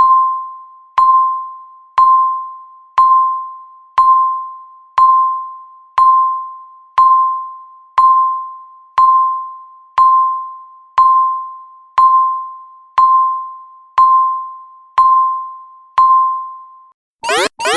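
Countdown timer ticking once a second: each tick is a single clean, bell-like electronic beep that fades away before the next, seventeen in a row. Just before the end the countdown reaches zero and the loud alarm starts, a fast run of rising electronic sweeps, several a second.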